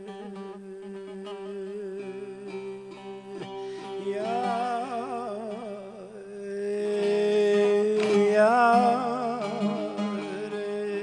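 Bağlama (long-necked Turkish saz) playing a plucked melody over its ringing drone strings. A wavering, ornamented voice line hums along from about four seconds in and grows louder about seven seconds in.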